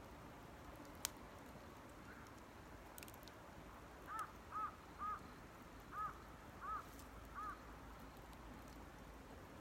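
A crow cawing six times in a quick series about four seconds in, over the faint ticking of a small wood fire, with one sharp crack about a second in.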